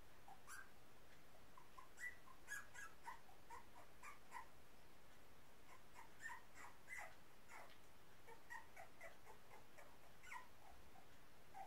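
Very young puppies whimpering and squeaking: faint, short, high squeaks, many dropping in pitch, coming in scattered clusters every second or so.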